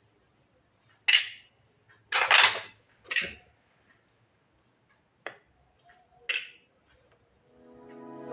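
Javan myna giving several short, harsh calls in a loose series, with a single sharp click about five seconds in. Music starts to fade in near the end.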